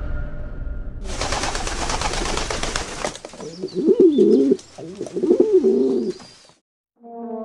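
A pigeon cooing: two warbling coos, each about a second long, after about two seconds of rustling noise. It cuts off abruptly.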